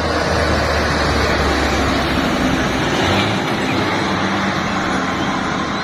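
Truck engine running steadily with a low hum under a dense noise, the hum shifting in pitch about three seconds in.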